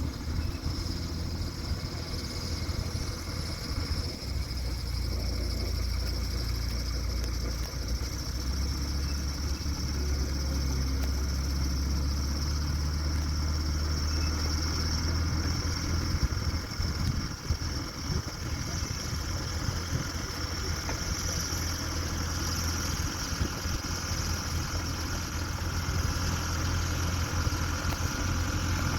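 Dresser bulldozer's diesel engine running steadily, with its low hum growing heavier for several seconds around the middle.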